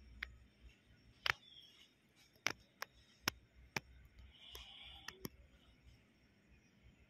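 Faint, irregular light clicks and taps in a quiet small room, several of them scattered with no steady rhythm, and a brief soft hiss about four and a half seconds in.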